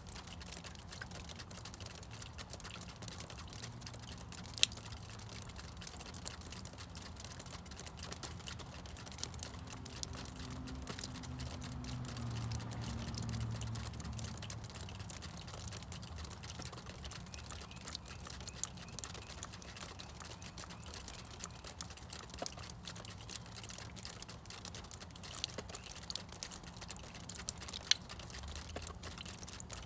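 Meltwater from thawing snow dripping in irregular, scattered plinks. A low rumble swells and fades away about halfway through.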